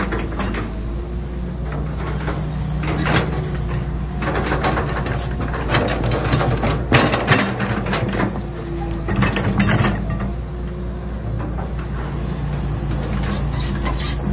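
Excavator engine running steadily, with scattered metallic clanks and knocks from the working machine, the loudest about seven seconds in.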